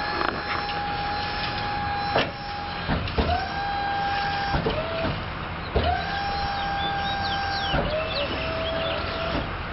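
Electric motor moving the shed off the delivery trailer, whining in several short runs: each run rises quickly to a steady pitch and cuts off, with a knock at some of the starts and stops. In one run the pitch drops partway, as the motor takes more load.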